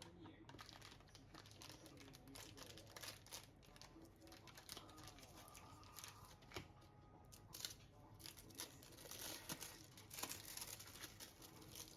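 Faint crinkling and rustling, a quick irregular run of small crackles and clicks, busiest in the second half.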